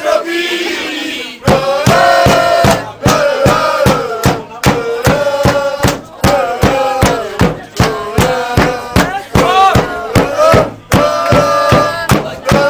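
Football crowd chanting a song in unison, with a steady sharp beat about twice a second from about a second and a half in.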